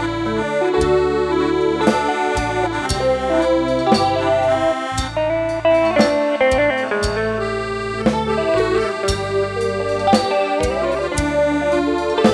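Instrumental break in a Khmer orkes dance-band song: electric guitar and keyboard playing the melody over a bass line and a steady drum beat of about one hit a second.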